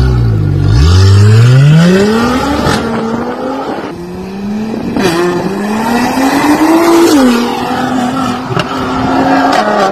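2017 Mercedes-AMG GLC43's twin-turbo V6 through an Armytrix valvetronic cat-back exhaust, loud under acceleration. The pitch climbs steeply over the first two seconds, climbs again from about five seconds in, and falls back about seven seconds in.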